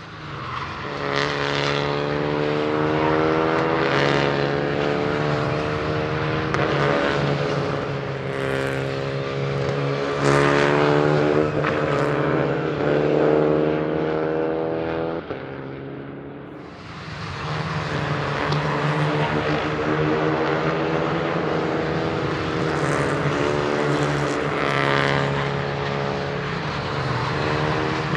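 Renault Clio Cup race cars driving past one after another on the circuit, engines running hard. Each car's pitch falls as it passes. The sound eases briefly about two-thirds of the way through, then the next cars come by.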